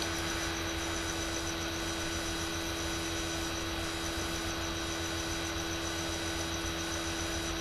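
Steady hiss with a low hum and a steady mid-pitched tone: the background noise of the recording microphone, with nothing else sounding.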